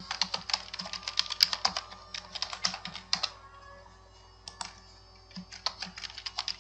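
Computer keyboard typing in quick runs of keystrokes, with a pause of about a second midway.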